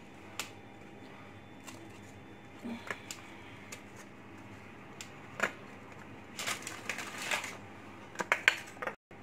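Hands breaking biscuits and setting the pieces into glass dessert cups: scattered small clicks and taps of biscuit against glass, bunched in the second half.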